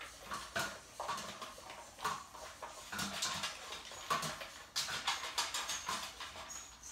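Great Danes, an adult and a puppy, eating dry kibble from their bowls: irregular crunching and munching, about two crunches a second.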